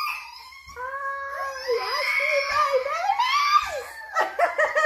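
A woman's long, high-pitched emotional squeal, wavering up and down for about three seconds, breaking into laughter near the end.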